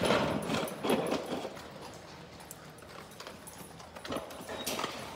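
Scattered light clicks, scuffs and knocks of movement on a concrete kennel floor among dogs. They are louder in about the first second, then fainter.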